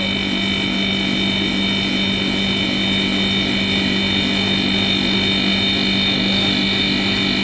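Compressor running steadily under load, building pressure: an even hum with a steady high whine over it.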